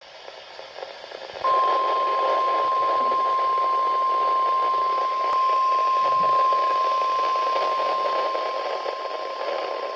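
NOAA Weather Radio 1050 Hz warning alarm tone: one steady, unchanging tone that starts about a second and a half in, over a constant hiss of radio static. The tone signals that a warning broadcast, here a flood warning, is about to follow.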